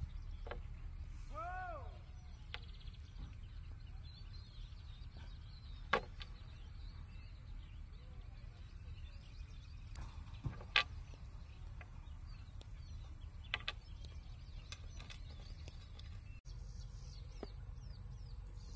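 A goose honks once about a second and a half in, over a steady low outdoor rumble. Faint small-bird chirps run through it, and two sharp clicks come at about six and eleven seconds.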